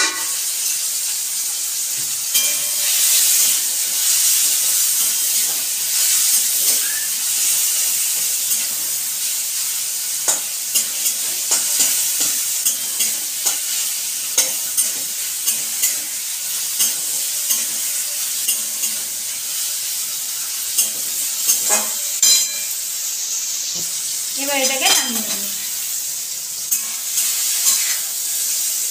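Chopped tomatoes and cashews sizzling in hot oil in a metal kadai with a steady hiss, stirred with a flat spatula that scrapes and clicks against the pan many times.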